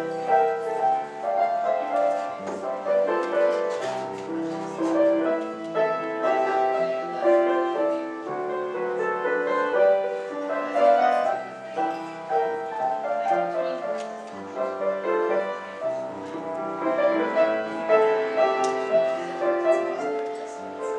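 Solo piano playing a 1925 love song used as silent-film accompaniment for a love scene, a continuous melody over held chords.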